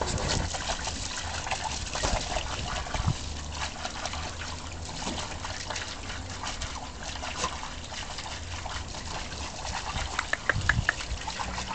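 Water trickling and splashing in small, irregular spatters as a Cairn terrier plays in it.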